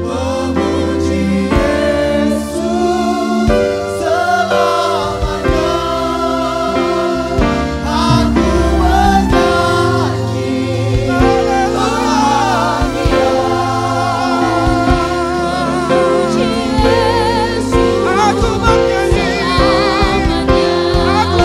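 A group of worship singers sings an upbeat Indonesian praise song with vibrato, the congregation joining in, over a band with bass and a steady drum beat.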